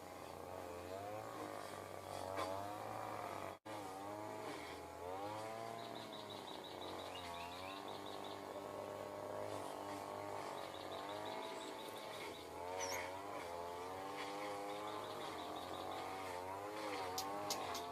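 An engine running with its pitch rising and falling over and over, like a motorbike being revved. A high, rapid ticking trill repeats three times in the background. The sound cuts out for an instant about three and a half seconds in.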